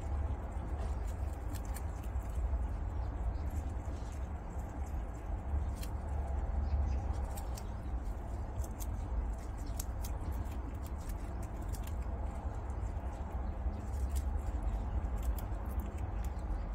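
Two prairie dogs nibbling and tearing fresh grass blades: many quick, crisp clicks and crunches of chewing at an irregular pace. A steady low hum runs underneath.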